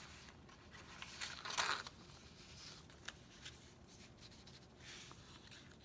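Faint paper rustling and crinkling as a paper ribbon strip is pulled through punched slots in a sheet of thick photo paper, with a louder rustle about a second and a half in and a few light ticks.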